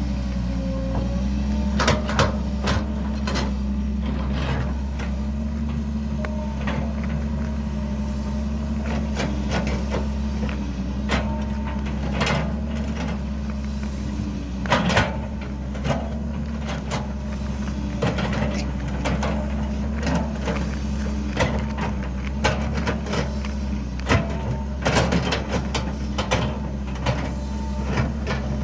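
Excavator with its engine running steadily, overlaid with repeated irregular clanks and knocks.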